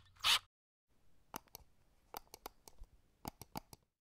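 A short burst of noise right at the start, then about a dozen small, sharp clicks at uneven intervals over a faint room hiss.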